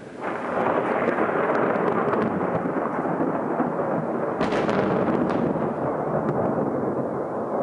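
Loud thunder that breaks in suddenly and rumbles on steadily, with a sharper crack about four and a half seconds in, from lightning striking close by.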